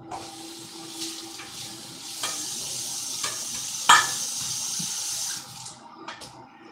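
Kitchen tap running into the sink, turned up about two seconds in and shut off near the end, with a few knocks, one sharp and loud about halfway through.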